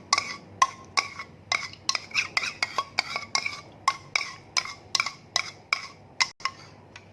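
A spoon stirring lime juice and coarse salt, clinking against the sides of its container about two to three times a second, each clink ringing briefly. The stirring dissolves the salt.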